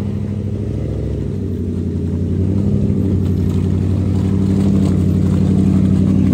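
Jeep Grand Cherokee's 5.9-litre V8 engine running under load as the truck crawls up a steep mud slope, the engine note steady with a brief dip about a second in, then growing louder as it comes closer.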